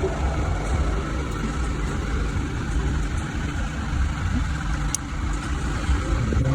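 Steady low rumble of background noise, with a single sharp click about five seconds in.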